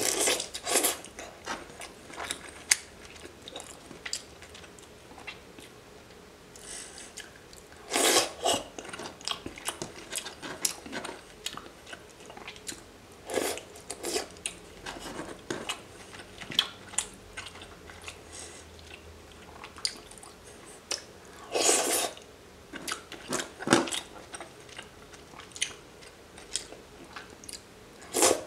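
Close-miked chewing and wet mouth sounds of a person eating raw seafood by hand, in irregular spells with sharp little clicks, louder about eight seconds in and again about three quarters of the way through.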